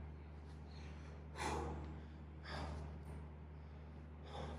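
A man breathing hard, out of breath and fatigued from a bodyweight chest workout, with three heavy breaths one to two seconds apart.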